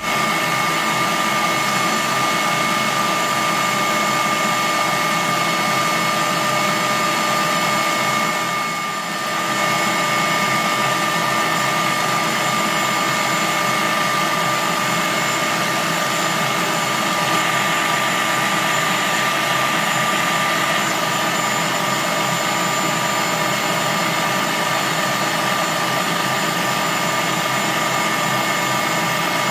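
Kenwood Kitchen Machine stand mixer running at maximum speed, its whisk attachment beating eggs and sugar to a foam: a steady motor whine with whisk noise that dips briefly about nine seconds in.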